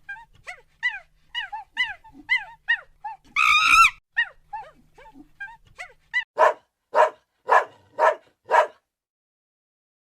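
A dog whimpering in a quick run of short, falling, high-pitched yelps, with one louder harsh cry about three and a half seconds in. It then barks five times, about half a second apart.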